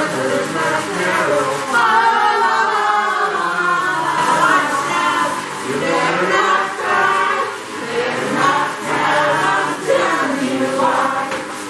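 Music with choral singing, several voices holding and moving through sung notes without a break.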